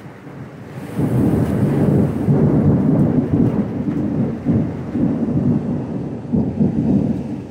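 Thunder: a loud rolling rumble that breaks in suddenly about a second in and keeps rumbling in uneven swells, easing a little near the end, over steady rain.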